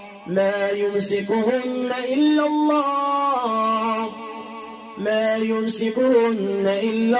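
A man's voice reciting the Quran in a melodic, chanted tajweed style, drawing out long held notes that step slowly up and down in pitch. The line breaks off briefly for breath right at the start, and a softer phrase follows about four seconds in before it swells again.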